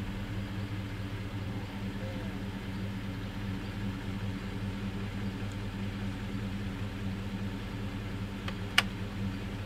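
Chevrolet Silverado pickup's engine idling steadily with an even low hum. A single sharp click sounds about nine seconds in.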